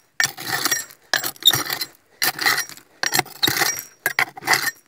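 A hand tool scraping and digging at rock in a quartz vein, about five rasping strokes with stone fragments clinking.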